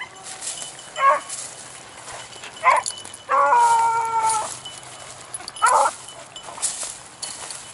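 Beagles giving tongue on a scent trail: a few short separate barks, with one longer drawn-out bay near the middle. They are barking on and off because they have not yet lined out the track.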